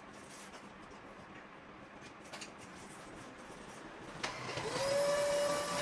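An electric appliance is switched on with a click about four seconds in. Its motor spins up to a steady whine with a rushing hiss.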